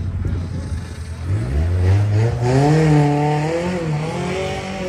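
Suzuki Vitara's BMW M47 2.0-litre diesel engine revving hard under load as the 4x4 climbs a steep dirt slope. The engine note is steady and low at first, rises about a second and a half in, holds high with some wavering, and eases off near the end.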